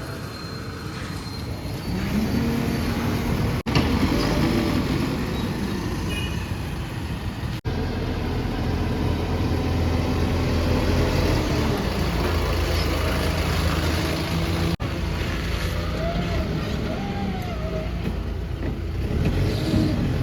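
Diesel engines of a backhoe loader and a farm tractor running steadily under load, their pitch rising and falling as they work. The sound cuts out for an instant three times.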